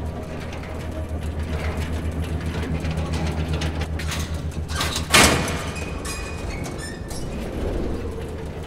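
Low, steady mechanical hum of laboratory machinery, with one sudden loud burst of noise about five seconds in.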